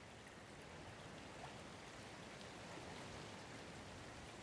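Faint, steady rush of water flowing along an irrigation canal.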